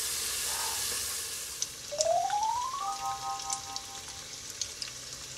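Chicken wings deep-frying in a pot of oil: a steady sizzle that fades about two seconds in. A tone then rises for about a second and holds briefly as a short chord, with scattered small clicks.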